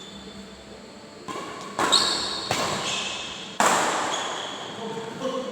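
Ball play on an indoor court: four sharp impacts, the loudest about two-thirds of the way through, mixed with short high squeaks and echoing in a large hall.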